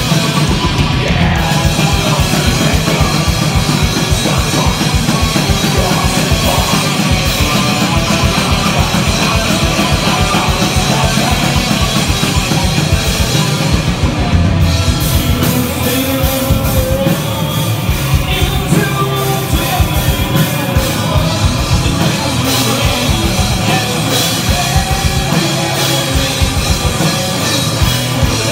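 Metal band playing live and loud: guitars, fast dense drumming and a vocalist singing into the microphone.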